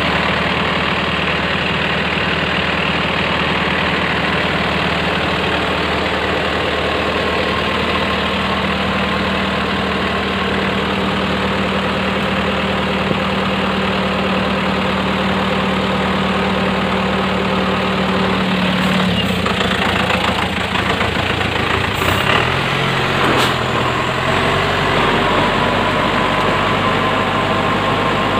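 Logging truck's engine running steadily as the truck works along on its winch cable through deep mud. About 19 seconds in the engine note drops and changes, and a couple of sharp clacks follow a few seconds later.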